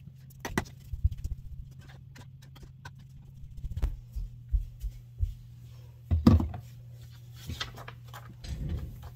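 Handling and moving-about noises: scattered knocks and soft thumps as someone gets up and sits back down, the loudest thump about six seconds in, over a steady low hum.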